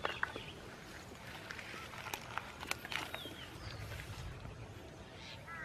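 Scraping and scattered sharp clicks and knocks of digging into a burrow in dry soil by hand and with a bamboo stick. Short bird chirps are heard in the background, one about three seconds in and a few near the end.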